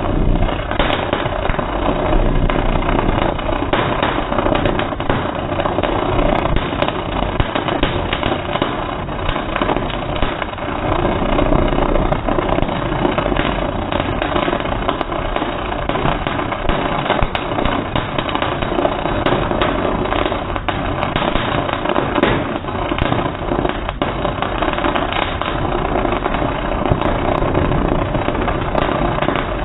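Arc welding played back in slow motion: a continuous dense crackling hiss, slowed down and deepened into a steady engine-like rumble.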